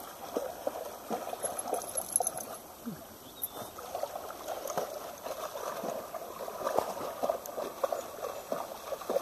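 Shallow river water trickling over gravel, with light irregular splashing from dogs wading in the shallows.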